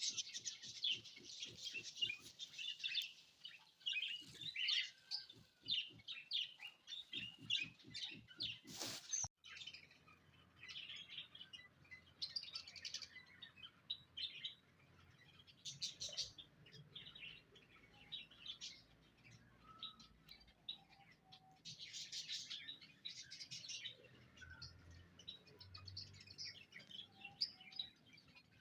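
Small pet birds chirping and tweeting in short, scattered high calls, busier in the first few seconds and sparser later, with one brief sharp noise about nine seconds in.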